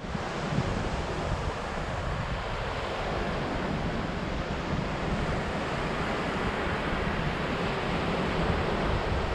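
Small waves breaking on a sandy beach, a steady rushing noise, with wind buffeting the microphone.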